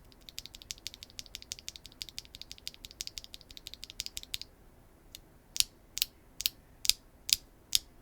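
Keygeek Butterfly linear mechanical keyboard switches being pressed: a fast run of light clicks for about four seconds, then after a short pause about seven louder, evenly spaced clacks. The sound is kinda clacky.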